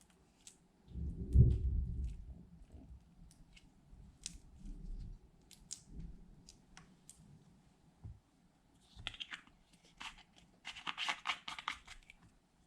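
Hands working slime: soft low squishing and pressing thuds, the loudest about a second in, then a dense run of small sticky crackles and clicks near the end.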